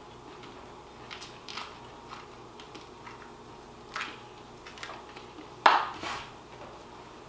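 A knife and pepper being handled at a kitchen counter: a few faint clicks, then a sharp knock about six seconds in with a softer one just after, as of the knife or pepper set down on the counter.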